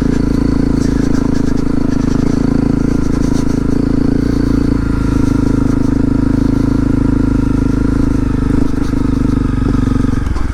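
2018 Honda CRF250L's single-cylinder engine running steadily at an even pitch.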